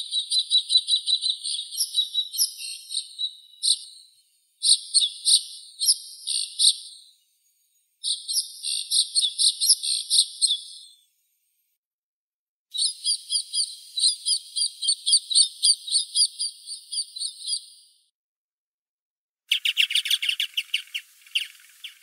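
White-winged snowfinch (snow finch) chirping: five bursts of rapid, high repeated notes, each lasting a few seconds with short pauses between them. The last burst, about twenty seconds in, reaches lower in pitch.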